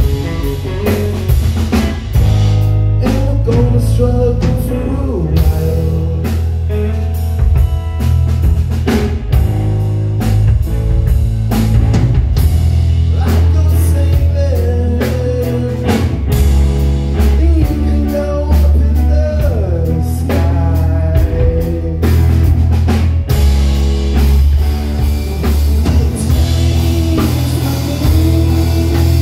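A rock trio playing live: electric guitar, bass guitar and drum kit, with a heavy, steady bass line under a regular drumbeat and a wavering melody line above.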